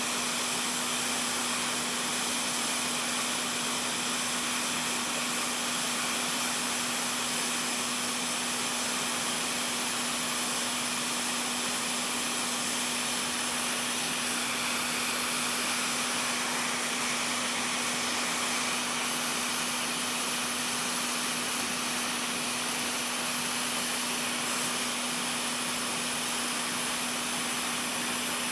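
Steady blowing hiss of a small electric fan-driven blower running without a break, with a constant low hum underneath.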